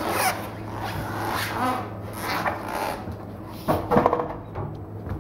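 Handling noise of an agricultural tractor tyre on a steel wheel being lifted and stood upright: rubber scuffing and rubbing, with a louder knock just under four seconds in.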